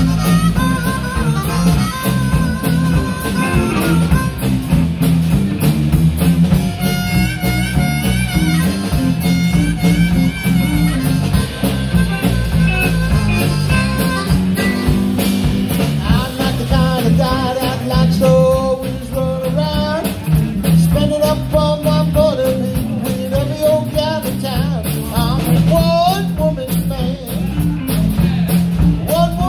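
Live blues band playing: a harmonica solo blown into the vocal microphone, with bending, wavering notes, over electric guitars and a drum kit.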